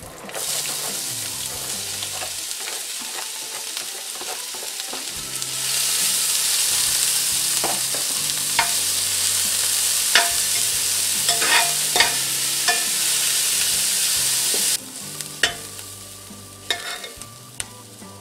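Diced onion, bell pepper and celery sautéing in hot olive oil in a metal pot, sizzling steadily while a metal spoon stirs them and clinks and scrapes against the pan. The sizzle grows louder about five seconds in and drops off suddenly near the end.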